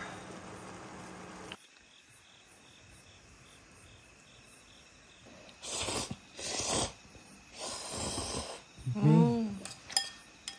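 Loud slurping of instant ramyeon noodles, two long slurps about six seconds in and more sucking a little later, over faint crickets chirping. Around nine seconds comes a short, loud hummed vocal sound, then a few light clicks.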